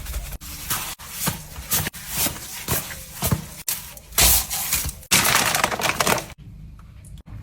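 Kitchen food-handling sounds: a run of short scraping and crackling strokes, cut together from several brief clips, that drop to a quieter stretch about six seconds in.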